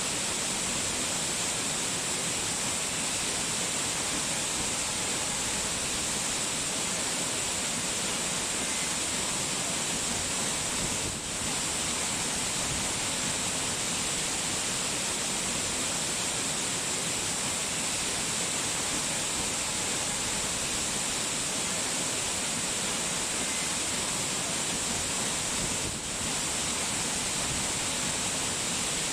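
Steady rushing noise of falling water, even and unbroken, dipping briefly twice.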